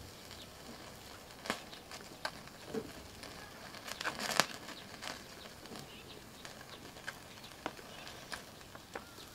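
Knife and hands trimming fat from duck meat on a cutting board: scattered light taps and clicks, with a brief cluster of louder ones about four seconds in.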